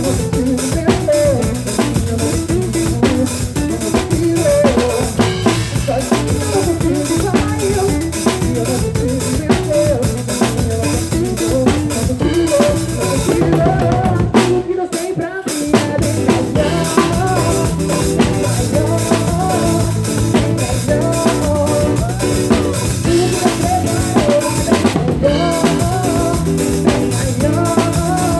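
Pagode band music led by a drum kit, with bass drum, snare and rimshots keeping a busy rhythm under pitched band instruments. The band breaks off briefly about halfway through and comes straight back in.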